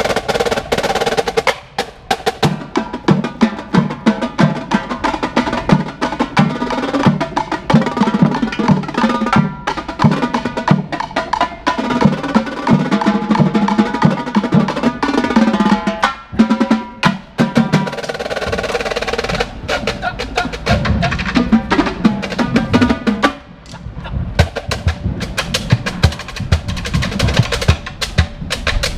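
Marching drumline of snare drums, tenor drums and bass drums playing a fast, dense passage together, with brief breaks and the low bass drums strongest in the later part.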